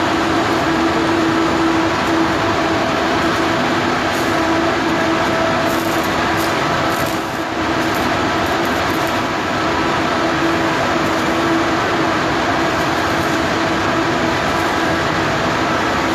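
Steady, loud machinery drone with a constant hum underneath, from welding work inside a large steel tank.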